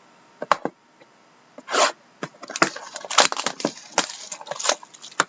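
Trading card packaging being torn open and handled: a couple of sharp clicks about half a second in, then a run of crackling, tearing noises.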